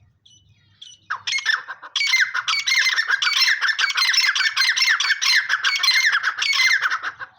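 Teetar partridge calling, a loud run of rapidly repeated notes that starts about a second in and stops shortly before the end.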